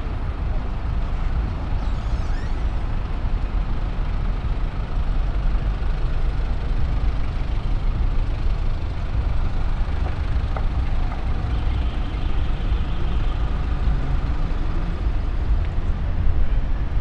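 City street traffic: a steady low rumble of vehicles, buses among them. A faint high squeal lasts about two seconds roughly two-thirds of the way through.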